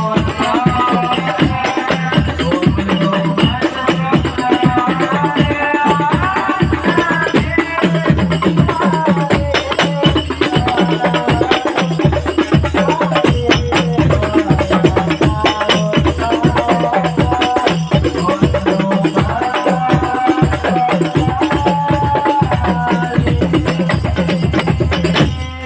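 Sholawat music played loud through a large sound system: a fast, steady frame-drum and tambourine beat with a melody line over it, cutting off near the end.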